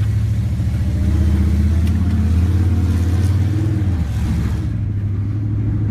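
Monster truck engine running loud under load, its note climbing over the first few seconds and then falling away about four seconds in as the throttle comes off.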